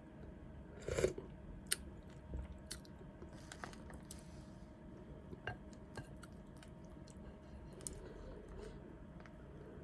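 Close-miked chewing of noodle soup, with scattered wet mouth clicks and smacks, the loudest about a second in.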